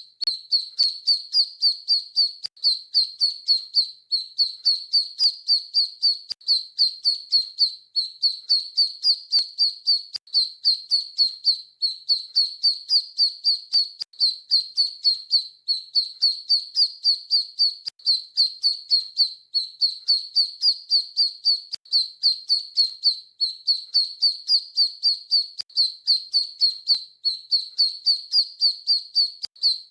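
Duckling peeping: short, high-pitched peeps in quick runs of several notes, the runs repeating about every two seconds without letting up.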